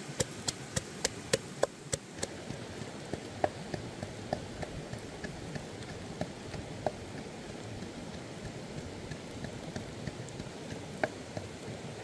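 Wooden pestle pounding red chillies and garlic in a wooden mortar, sharp knocks at about three a second for the first two seconds. After that comes a steady hiss with scattered faint ticks.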